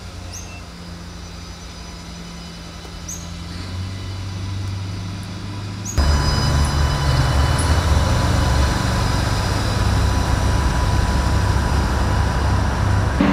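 Adelaide Metro 3000-class diesel railcar running with a steady low drone that slowly gets louder. About six seconds in, it cuts suddenly to a much louder diesel railcar rumble with noise from the running gear.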